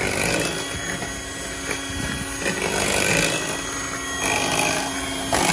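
Electric hand mixer running at a steady speed, its beaters whisking a thin cake batter in a ceramic bowl.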